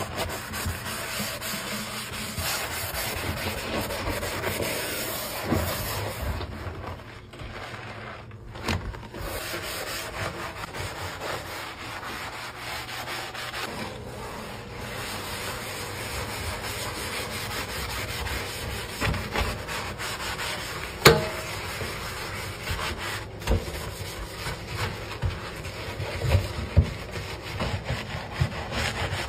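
Soapy dish sponge in a rubber-gloved hand scrubbing a stainless steel sink and its tap: steady rubbing, with one sharp knock about two-thirds of the way through.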